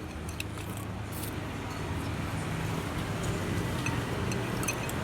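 A motor vehicle's engine running close by, a low hum that slowly grows louder, with a few faint clinks of dishes.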